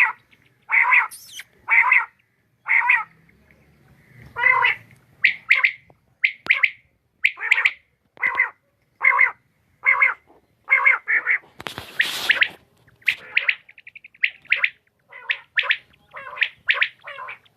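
Quail calling: a long run of short, harsh calls, about one a second, with a brief hiss about twelve seconds in.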